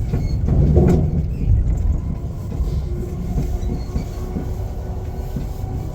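Elizabeth line electric train running at speed, heard from inside the carriage: a steady rumble of wheels on track with irregular low knocks and a faint hum.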